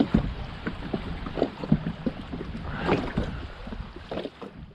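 Irregular knocks and bumps of handling on a fishing kayak, over wind noise on the microphone, fading out near the end.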